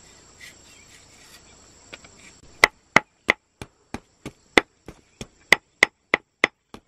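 Even, rhythmic chopping on a wooden board, about three strokes a second, starting about two and a half seconds in. Before it, a faint steady insect chorus.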